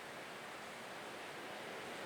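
Calm sea waves washing against the shore in a steady, even wash of sound that starts suddenly at an edit cut.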